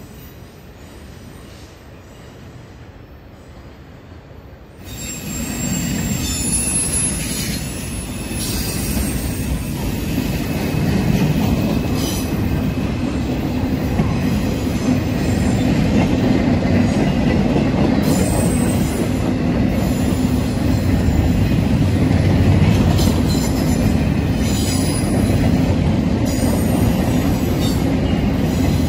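Freight train of empty gondola cars rolling past close by: a steady heavy rumble of steel wheels on rail, with high-pitched wheel squeals that come and go. The sound is quieter for the first few seconds, then jumps loud about five seconds in as the cars pass right by.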